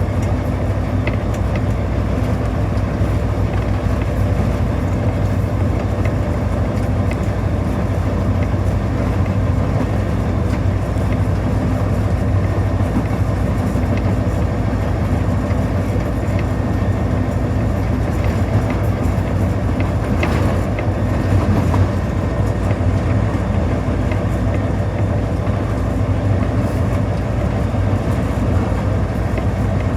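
EMD SD40-2 locomotive's two-stroke V16 diesel engine running steadily under power, heard inside the cab along with the rumble of the moving train. There is a brief louder rattle about twenty seconds in.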